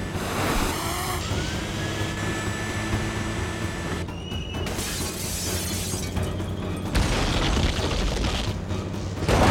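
Action-film soundtrack: a dramatic score mixed with crashing, shattering and booming effects, ending on a loud hit.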